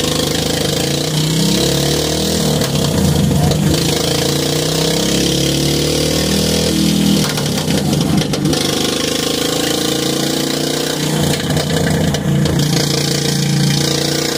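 Duromax 440 cc 18 HP single-cylinder small engine in a small roadster, revving as the car pulls away and accelerates. Its note drops and climbs again a few times as it is shifted up through the four-speed gearbox.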